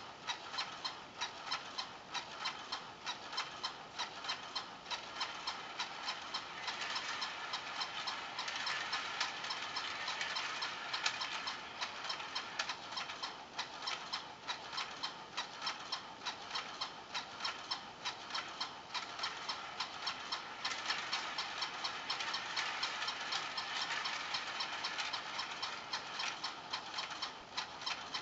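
Battery-powered Dah Yang Playful Penguin Race toy running: a small motor whirring with regular plastic clicking about twice a second as the mechanism cycles the penguins. The speed rises and falls from a loose connection at its single D battery.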